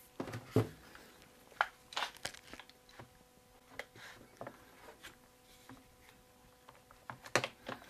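Scattered light clicks and knocks as a plastic-jawed Quick-Grip bar clamp is handled and set against wooden parts, at irregular intervals, over a faint steady hum.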